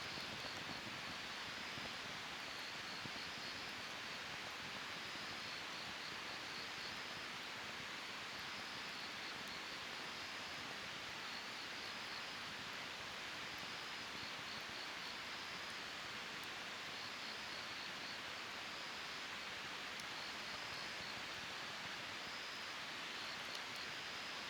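Wood fire burning in a Snow Peak fire pit: a steady hiss with a few faint pops. Over it, a faint high chirping repeats every second or two.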